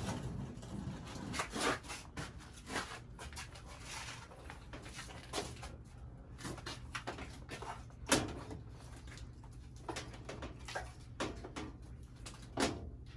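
Scattered knocks, clicks and rustles of someone moving about and handling things in a basement, with the sharpest knocks about eight seconds in and near the end, over a steady low hum.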